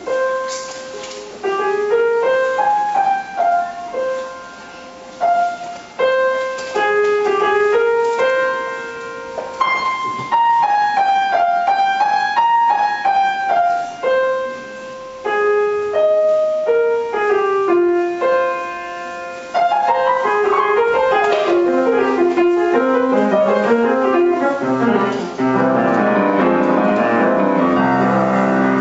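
Grand piano played solo: a slow single-line melody over a light accompaniment, which about two-thirds of the way through turns into fast, fuller passages that are louder and reach down into the bass.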